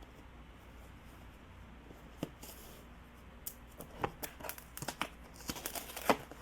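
Box and packaging being handled and opened by hand: a few scattered sharp clicks at first, then a busier run of crinkles and taps in the second half.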